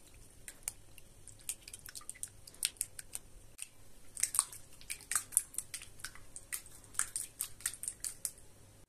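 Silicone spatula stirring eggs and yogurt in a bowl: irregular wet squelching clicks, sparse at first and busier and louder in the second half.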